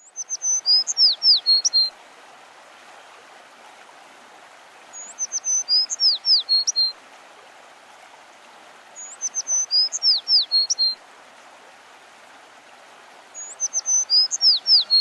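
A songbird singing the same short, high song phrase four times, one about every four seconds, over a steady hiss of outdoor background noise.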